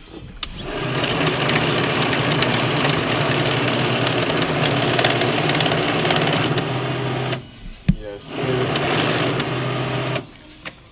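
Glory banknote counting machine riffling a stack of bills through at high speed, counting cash. It runs for about seven seconds, stops briefly with a click, then runs again for about two seconds.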